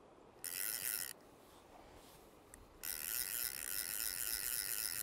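Centrepin reel's ratchet check clicking rapidly as line is wound in on a hooked fish. It comes in two spells: a short one about half a second in, and a longer one from about three seconds in.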